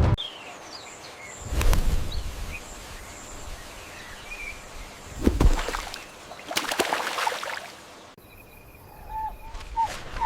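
Outdoor nature ambience: a steady hiss with scattered short, high bird chirps and a few dull knocks, and a rushing swell about two-thirds of the way through. Near the end the background changes abruptly and a few short pitched calls are heard.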